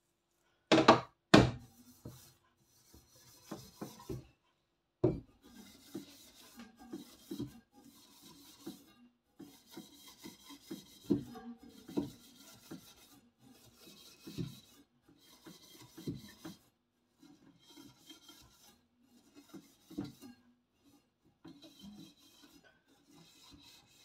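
Steel wool scrubbing the bars of a wire oven rack in repeated short rasping strokes, after two loud knocks about a second in.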